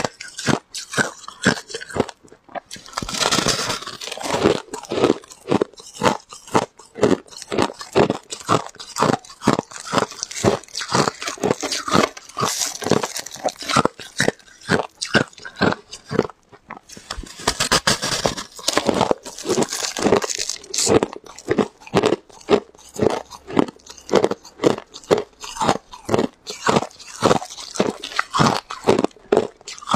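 Close-up crunching of crushed ice being bitten and chewed, a steady run of sharp crunches about three a second. Twice the crunching turns into a longer, denser crackle.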